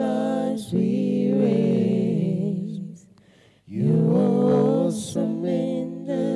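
Slow worship singing in long held, gently wavering notes, with a brief pause about three seconds in.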